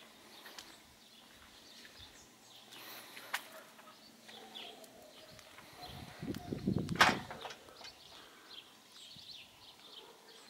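Quiet outdoor ambience with faint, scattered bird chirps. About seven seconds in there is a low thump that ends in a sharp click, the loudest sound.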